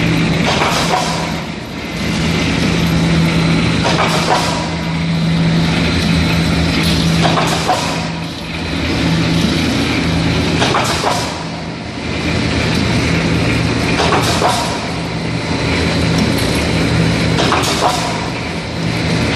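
T-bar (cross tee) roll forming machine running, steel strip feeding through its forming rollers with a steady motor hum. A short sharp burst of noise comes about every three and a half seconds, six times in all.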